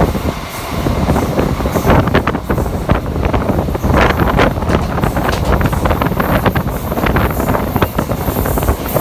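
Loud steady rumble of a moving Indian Railways passenger coach, heard from the train itself, with wind on the microphone and repeated sharp clacks of the wheels running over rail joints.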